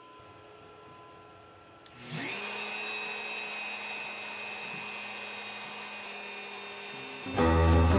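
Platform CNC router spindle spinning up about two seconds in, a rising whine that settles into a steady high-pitched whine while it runs without cutting. Loud guitar and string music comes in near the end.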